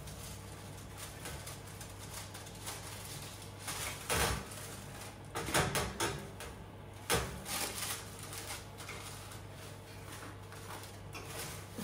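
Metal forks scraping and clinking against an oven tray and rack as a baked pizza on baking paper is worked out of the oven, with a few sharp scrapes about four seconds in, again around five to six seconds and once near seven seconds. A steady low hum runs underneath.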